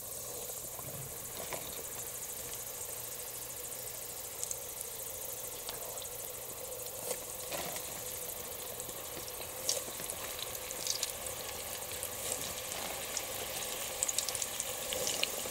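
Battered yellow perch frying in hot canola oil in a deep fryer: a steady sizzle with scattered pops and crackles, starting as the fish goes into the oil.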